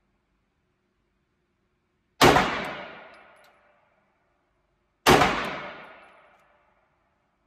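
Two 9mm pistol shots from a Shadow Systems XR920P, about three seconds apart, each followed by a long echo off the walls of an indoor range.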